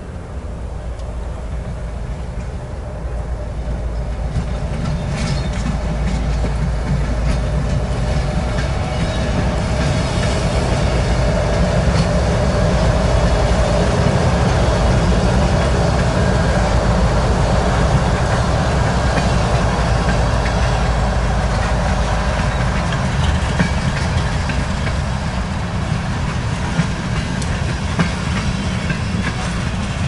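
Two Iowa Interstate GE Evolution-series (ES44AC) diesel locomotives approaching and passing at speed, their engines growing louder through the first dozen seconds, followed by loaded covered hopper cars rolling by with steady wheel clicking over the rail joints.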